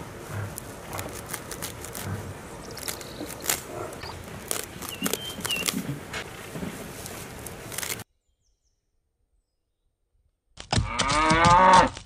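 Small hand sickle snipping through grass stalks in quick little cuts over a steady outdoor background. The sound then drops to dead silence, and about ten and a half seconds in a loud cow moo starts.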